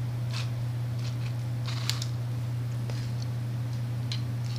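Steady low electrical hum with faint clicks and rustles of a small diecast model car being turned by hand on a floor, one sharper click about two seconds in.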